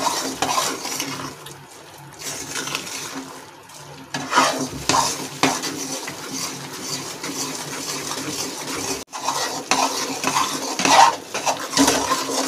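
A metal spoon stirring and scraping through thick gram flour (besan) roasting in ghee in a metal pot, in irregular strokes against the sides and bottom.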